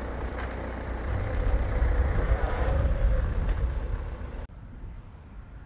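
A motor vehicle's engine running, swelling louder for a couple of seconds and then easing off, with the sound stopping abruptly near the end.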